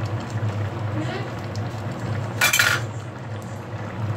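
A wooden spatula stirring and scraping in a frying pan of vegetables simmering in coconut milk, with one short, sharp clatter of kitchenware about two and a half seconds in, over a steady low hum.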